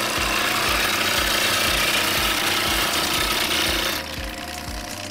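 Nibbler punching along the edge of a stamped sheet-metal exhaust-pipe shell, trimming it to length: a dense, loud rasping chatter of metal cutting that stops about four seconds in. A low thump repeats about three times a second underneath.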